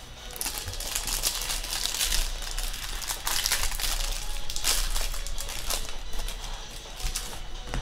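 Crinkling and crumpling of a trading-card pack wrapper being handled, a run of uneven rustling bursts that is loudest in the middle.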